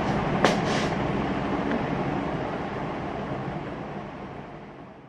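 Steady low rumbling noise with a single sharp click about half a second in, fading out gradually to silence.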